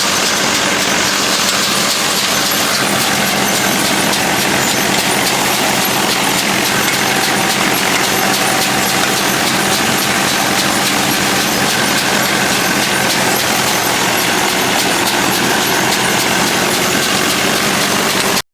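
Farm machine with its engine running steadily, a dense, even mechanical noise, which cuts off abruptly at the end.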